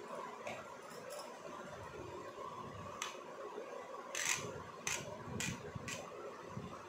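A knife spreading tomato sauce over pizza dough in a steel plate. There are a few short sharp clicks, a brief scrape about four seconds in, then three more clicks about half a second apart.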